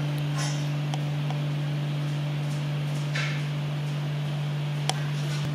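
A steady low hum, with a few faint soft clicks and a brief rustle about three seconds in as thread is handled on the sewing machine.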